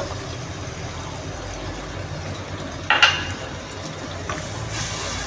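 Tomato paste and ginger-garlic paste sizzling in hot oil in a pan while a ladle stirs it, with one brief, sharper scrape about three seconds in.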